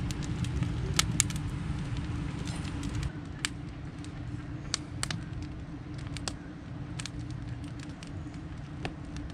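Campfire crackling, with irregular sharp pops over a steady low rumble.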